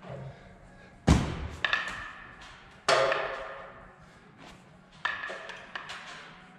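Hanging grips clanking against a steel ninja-course rig as a person swings and catches from one hold to the next. There are three sharp clanks about two seconds apart, each ringing briefly, with smaller clicks between them. The first, about a second in, is the loudest and has a heavy thud.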